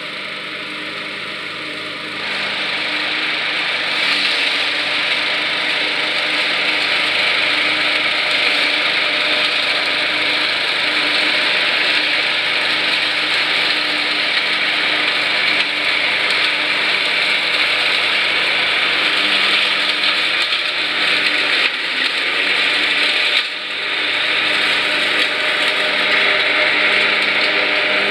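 Riding lawn mower running steadily under load, its engine hum mixed with the dense hiss of the mower deck mulching dry fallen leaves. It gets louder about two seconds in and dips briefly a few seconds before the end.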